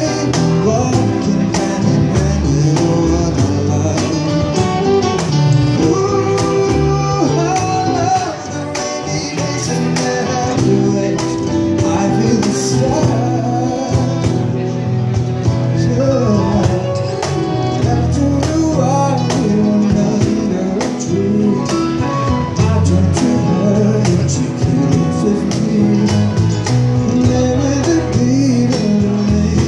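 Live band playing a soft pop ballad: a male singer over keyboard, plucked strings, bass and cajon, with a saxophone on stage.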